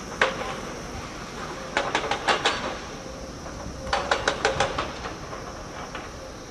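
Tracked excavators working broken rock: steady diesel engine noise, with two quick runs of about seven sharp clanks of steel on stone, one about two seconds in and another about four seconds in, and a single clank just after the start.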